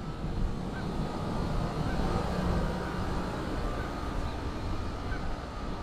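Steady low rumble of an engine running, with faint short high chirps about once a second.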